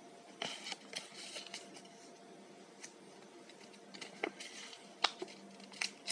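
A paper sheet rustling and crinkling as hands fold and crease it into an origami module: scattered short crackles and clicks over a faint steady hum.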